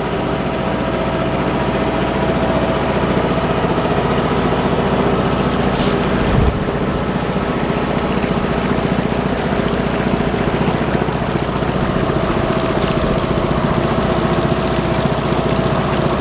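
A small day boat's motor running steadily under way, a constant hum with a steady high tone over an even rush of noise. There is a brief low thump about six and a half seconds in.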